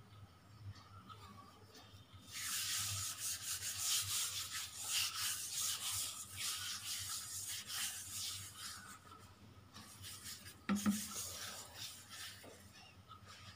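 A hand rubbing oil across a countertop, a steady rubbing that starts about two seconds in and lasts about seven seconds, with a single sharp knock near the end.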